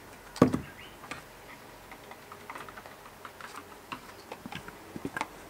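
Scattered light clicks and taps from handling a small container of wheat-starch paste, with one louder knock about half a second in.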